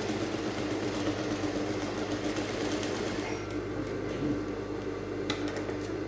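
Sewing machine stitching a seam at speed, then stopping about halfway through. A steady low hum carries on afterwards, with a few light clicks near the end.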